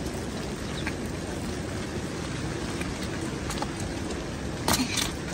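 Steady rain falling, an even hiss of drops, with a couple of sharp clicks a little before the end.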